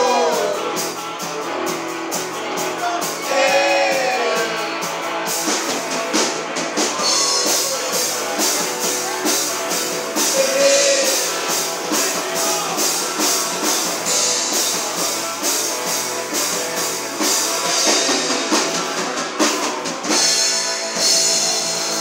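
Live rock band playing: electric guitars and a drum kit keeping a steady beat, with a singer's voice coming in a few times. The cymbals get brighter near the end.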